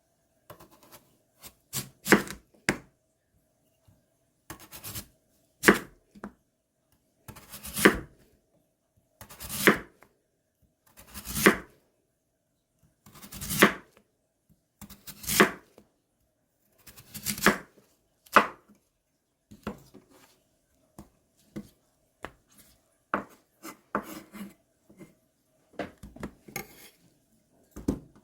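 Knife cutting radish on a cutting board: heavy strokes about every two seconds, then lighter, more scattered cuts in the last ten seconds.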